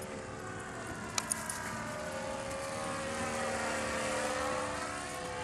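ParkZone J-3 Cub RC plane's brushless electric motor and propeller whining in flight, growing louder as it passes close by about four seconds in. Two sharp clicks about a second in.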